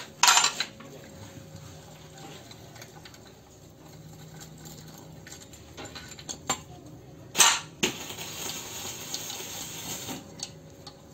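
Socket ratchet clicking and steel tools and bolts clinking while bolts are undone from the lower crankcase of a stripped-down Toyota Yaris engine, with two louder clanks, one near the start and one about seven and a half seconds in.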